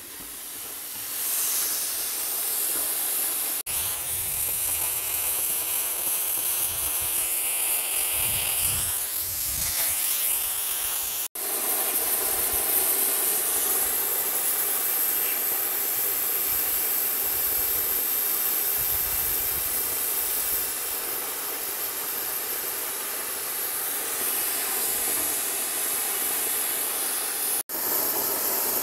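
Oxy-fuel cutting torch on a pipe beveler, hissing steadily as its jet cuts through the steel wall of a large pipe. The hiss breaks off for an instant three times.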